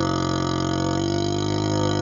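A long, low-pitched burp blown through a hollow vacuum extension tube, held as one steady tone with the tube's resonance.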